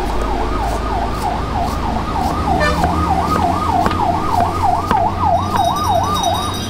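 Fast-cycling vehicle siren, its pitch sweeping down and snapping back up about three times a second over a low traffic rumble; it stops shortly before the end.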